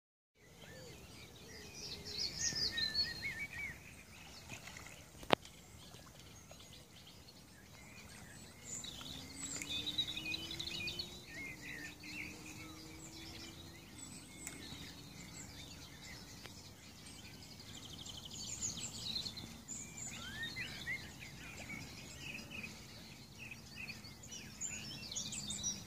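Several small birds chirping and singing over a low outdoor background rumble, with one sharp click about five seconds in and a faint low hum that rises and then holds for several seconds in the middle.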